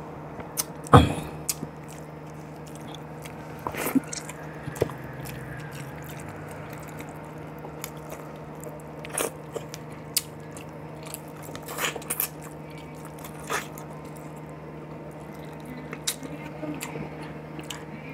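Close-miked eating sounds: a man chewing boiled chicken and tamarind-leaf soup, with scattered mouth clicks and smacks over a steady low hum. A sharp mouth sound about a second in is the loudest.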